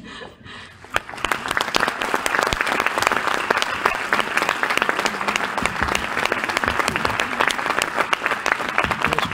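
Audience applauding, many hands clapping densely; it starts about a second in and keeps up steadily.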